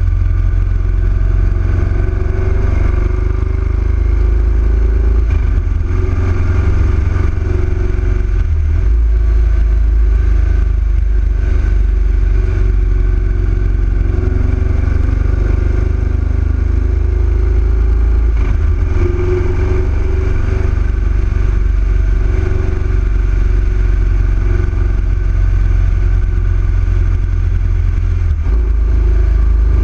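Yamaha XV1900 V-twin motorcycle engine running steadily at road speed, its pitch rising and falling slightly, under a heavy low rumble.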